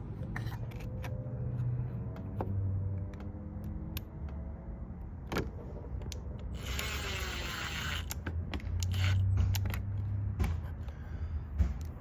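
Clicks and handling noises of hand work on car parts over a low steady hum, with one rasping burst of about a second and a half roughly seven seconds in.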